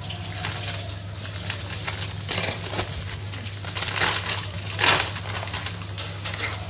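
Plastic tortilla bag crinkling and rustling as it is handled and opened, with louder crackles about two, four and five seconds in.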